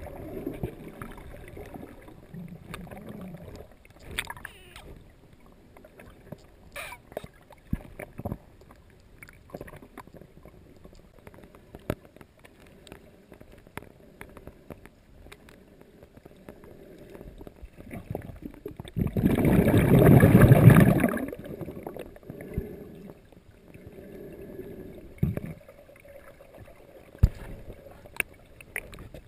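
Muffled underwater sound through a sealed GoPro housing: water movement with scattered soft knocks and clicks against the case, and one loud rushing burst lasting about two seconds, about two-thirds of the way in.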